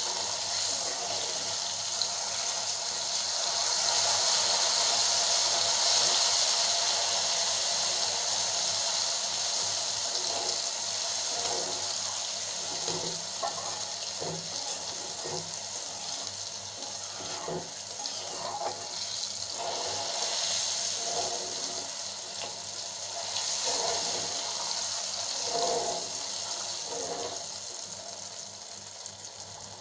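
Mustard oil sizzling and bubbling hard in a karahi as spices and mustard paste fry in it: a steady hiss that grows gradually quieter toward the end.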